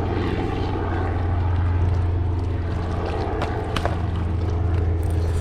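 Steady low hum of a boat's electric trolling motor, with two sharp clicks a little past the middle.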